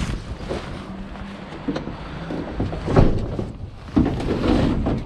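A vehicle engine runs steadily under irregular clunks and rattles, the loudest about three and four seconds in.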